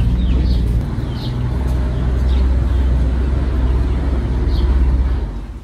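A loud, steady low rumble, with short, high, falling chirps from chickens about four times. The rumble drops away near the end.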